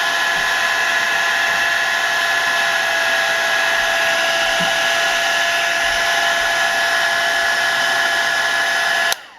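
A heat gun blowing hot air in a steady hiss with a constant whine, softening adhesive on the phone screen's parts. It shuts off abruptly near the end.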